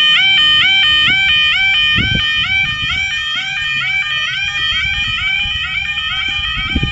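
Level crossing warning alarm sounding steadily with the barriers down: a loud electronic yodel that warbles about four times a second, each cycle a quick rising swoop into a held note.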